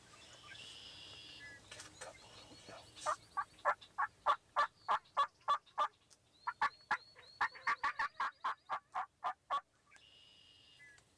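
Two runs of turkey yelps: short, evenly spaced notes, about three a second, the second run faster. Faint songbird chirps sound between them.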